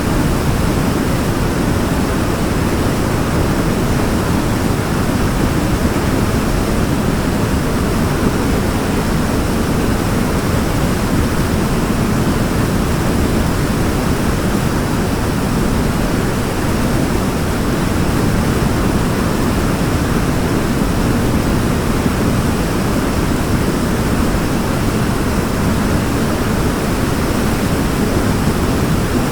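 Waterfall: a steady, even rush of falling water, heaviest in the low and middle range, unchanging throughout.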